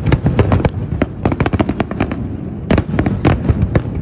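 Aerial fireworks display: rapid volleys of sharp bangs and crackles as shells burst overhead. They come in three quick clusters with short lulls between.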